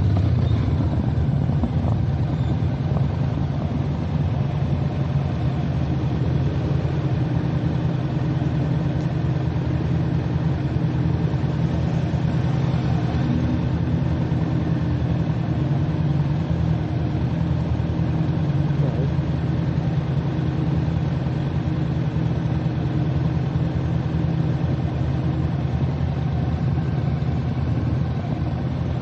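Motorcycle engine running steadily under way, a constant low drone.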